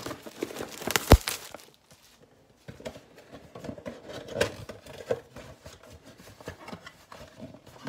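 Cardboard Panini Prizm football mega box being handled and its top flap pried open: scraping and rustling of cardboard with scattered small clicks, and a sharp knock about a second in.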